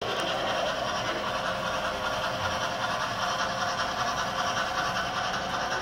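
A model train running along the layout's track, a steady mechanical running noise with no breaks.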